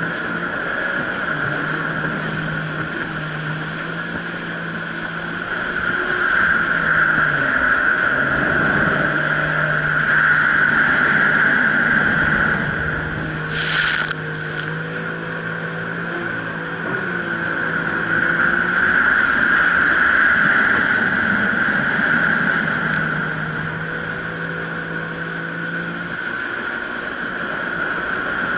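Jet ski engine running at low speed: a steady low hum that sags briefly about eight seconds in, under a higher whine that swells and fades. There is a short burst of noise about halfway through.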